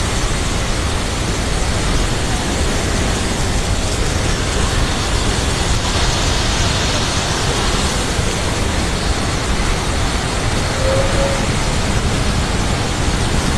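Steady, loud rush of a waterfall in heavy flow, its volume of water swollen well above normal.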